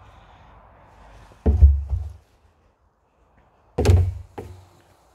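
Two heavy, dull thuds about two seconds apart, each dying away within half a second.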